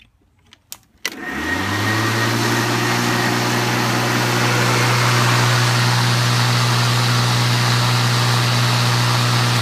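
Electric-converted Cub Cadet push mower, powered by LiPo batteries, switched on about a second in after a couple of small clicks. Its motor and blade spin up with a rising hum, then run at steady speed with a loud rushing noise.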